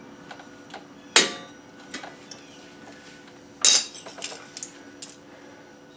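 Hand tools clinking against the steel springs and shoe hardware of a drum brake: a sharp metallic snap about a second in, a louder short metal clatter a little past the middle, and a few lighter clicks.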